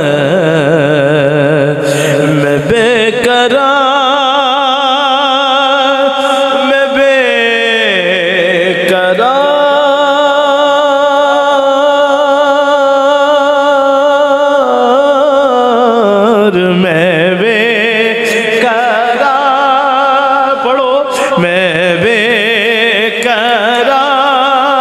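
A male voice singing a naat, an Urdu devotional song, into a microphone, drawing out long melismatic notes with heavy vibrato. One steady note is held for about six seconds midway.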